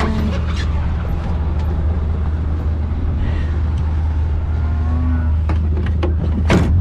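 Engine idling steadily close by, a low even drone, with scattered clicks and knocks and a louder knock near the end.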